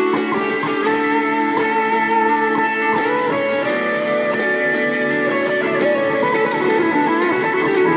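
Electric guitar played through a Boss SD-1 Super OverDrive pedal, improvising a melodic line in D major with held notes that bend in pitch.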